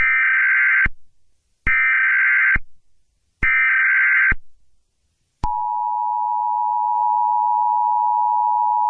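Emergency Alert System SAME header: three bursts of buzzing digital data tones, each just under a second long. About five and a half seconds in, the steady two-tone EAS attention signal begins.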